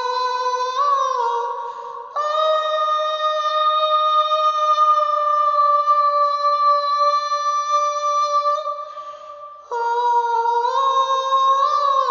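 Wordless soprano vocal tone singing sustained notes. A short phrase that steps slightly upward is followed, about two seconds in, by one long, very steady held note of about six seconds. A new phrase with small upward steps starts about ten seconds in.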